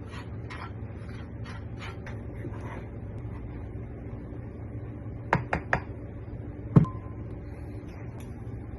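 Cilok dough of flour, hot water and tapioca starch being stirred in a bowl with a utensil: soft repeated scraping strokes, then three quick light clicks and one sharper knock with a brief ring, like the utensil struck against the bowl. A steady low hum runs underneath.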